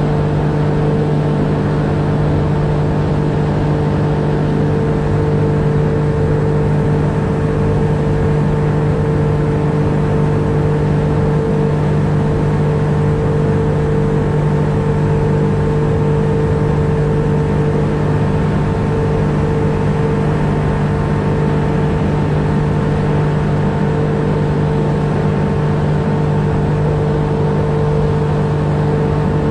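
Boat's outboard motor running at a steady cruising speed, an even drone that holds the same pitch throughout.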